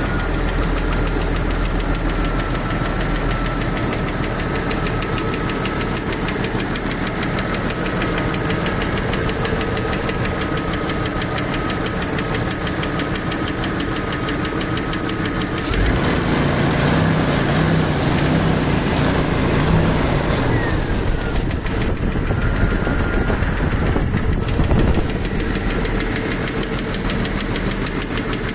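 Jeep Wrangler YJ's 4.0-litre straight-six running with a fast, steady ticking; the owner does not think it is a lifter and does not know its cause. The engine gets louder for a few seconds about sixteen seconds in.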